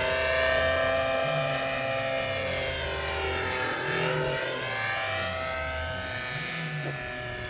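Electric-powered RC P-51D Mustang model flying at full throttle: a noisy motor-and-propeller drone of several steady tones, sounding much like a nitro engine. The tone shifts down and back up around the middle as the plane passes.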